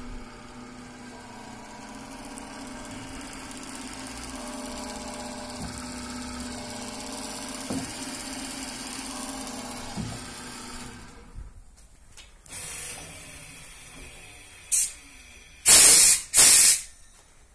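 Triple-drilling gearbox motor of a Kaban DE 4050 copy router running with a steady hum, stopping and running down about eleven seconds in. Near the end, a short blast and then two long, loud blasts of compressed air from a blow gun.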